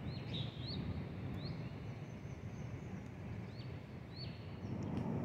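Low, steady rumble of a distant jet airliner, growing louder near the end, with small birds giving about five short chirps that rise and then drop.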